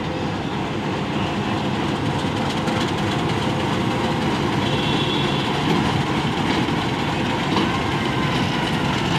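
Two coupled Bangladesh Railway diesel locomotives passing slowly at close range, their engines running with a steady low rumble that grows a little louder as they go by.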